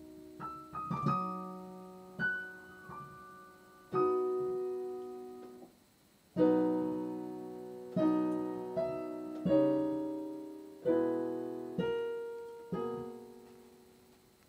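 Piano playing slow, separate chords and notes, each struck and left to ring and fade, with a brief pause about six seconds in.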